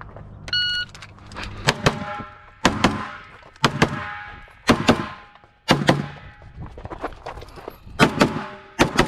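Shot timer beep about half a second in, then pistol shots fired in quick pairs, about one pair a second, with a pause of about two seconds before the last two pairs.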